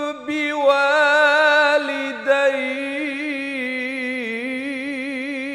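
A man reciting the Qur'an in slow, melodic tajweed, drawing out one long ornamented phrase. His held notes carry a fast, wavering trill that grows stronger in the second half, with brief breaks about two seconds in.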